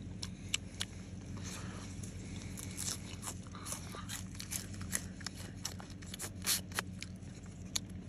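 A person biting and chewing a frozen green oat stalk with slushy ice inside it: a string of irregular sharp crunches.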